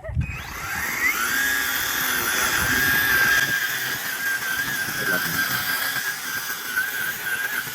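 Power lawn edger spinning up and running with a steady high whine, its pitch rising over about a second before it levels off.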